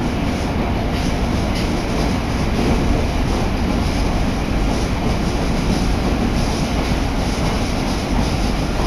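Yokohama Municipal Subway Blue Line train in motion, heard from inside the passenger car: a loud, steady, low running noise of wheels on rail.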